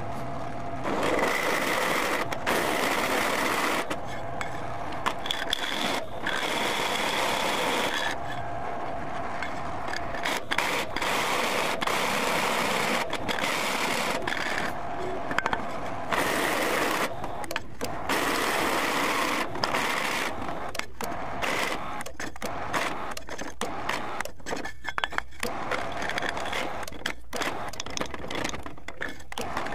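A large drill bit cutting into a steel block on a Millrite milling machine: the motor and spindle running, with rapid irregular clicking from the bit in the cut and a thin whine at times. It gets louder in spells of a few seconds as the bit is fed down and eased off.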